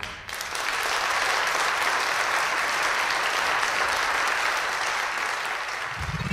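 Crowd applause, steady and even; near the end a rising synthesizer tone comes in.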